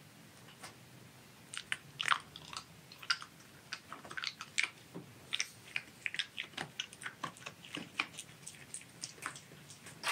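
Silver fox crunching and chewing a hard dried treat: a quick, irregular run of crisp bites, several a second, starting about a second and a half in.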